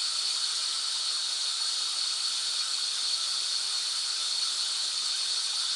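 Steady white noise, a constant hiss with most of its energy in the upper range, holding at an even level throughout.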